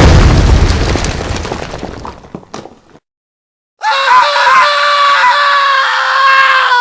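A loud burst of noise that dies away over about three seconds, then after a brief silence a long, high-pitched scream that wavers at first, holds steady and sags slightly at the end.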